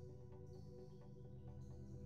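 Quiet electronic background music: sustained chords over a steady, pulsing low beat.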